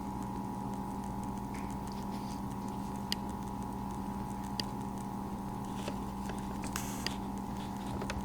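Steady electrical hum with a higher whine above it, with a few faint clicks and a brief rustle from handling the camera.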